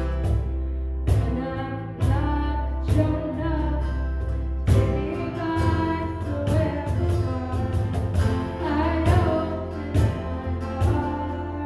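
Live worship band: a woman singing the lead over strummed acoustic guitar, piano and bass, with a steady beat of cajón hits.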